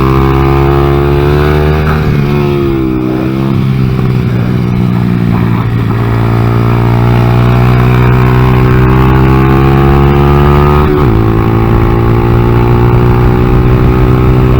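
Honda Grom's 125 cc single-cylinder engine running hard on track, heard from on board. The revs fall and pick back up about two to three seconds in, then drop sharply near the eleven-second mark and climb steadily again, as with a gear change.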